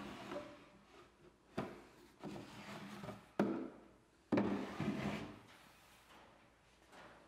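Old wooden drawer slid out of a worn wooden desk, wood rubbing and scraping on wood, with a few sharp wooden knocks as it is handled. The loudest knock and scrape come a little past the middle.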